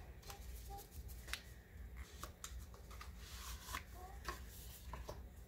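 Product packaging being handled to get a cosmetic product out: faint rustling with a dozen or so scattered light clicks and taps.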